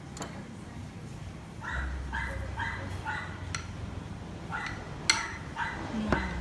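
Dog barking repeatedly, in two runs of several barks each, starting about two seconds in.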